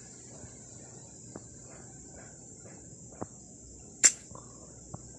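Steady high-pitched chirring of insects, like crickets, with a few light clicks and taps, the sharpest about four seconds in.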